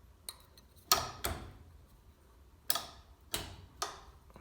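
Sharp metallic clicks and clacks, about six of them at uneven intervals, each with a short ring: the garage door opener's emergency release mechanism being handled after being pulled back to stay disengaged.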